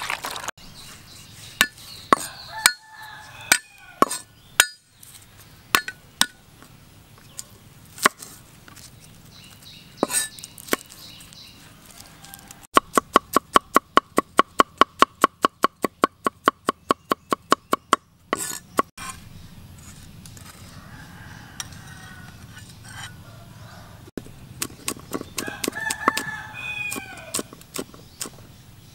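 Cleaver chopping garlic and red chili on a wooden cutting board: scattered single chops, then a fast even run of about seven chops a second for some five seconds. Near the end a rooster crows and chickens cluck.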